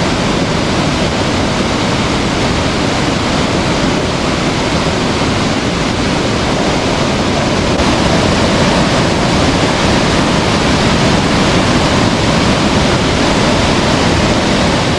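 Loud, steady rush of a waterfall heard up close.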